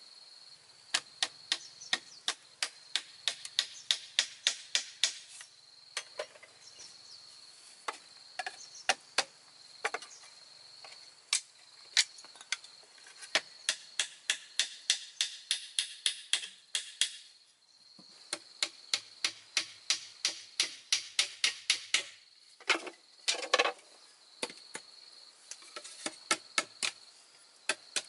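Runs of quick, sharp taps, a few a second with short pauses between runs, as a wooden mallet drives thin bamboo pegs into the drilled joints of a bamboo stool frame. A steady high-pitched insect drone runs underneath and drops out briefly about halfway through.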